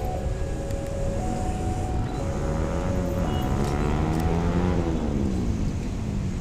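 Railway level-crossing alarm sounding two alternating tones, switching about once a second. A train passes close by at the same time, its rushing noise swelling to a peak about four and a half seconds in and then fading.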